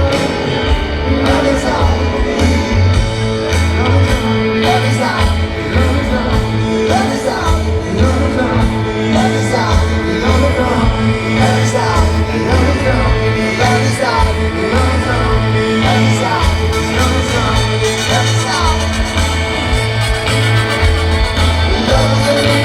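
Live rock band playing, with singing over a steady, pulsing bass and drum beat.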